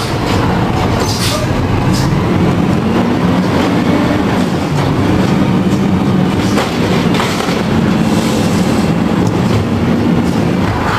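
Automated side-loader garbage truck running with its hydraulic side arm working, a steady loud drone whose pitch rises and falls as the arm reaches out and grabs a trash cart, with a few knocks.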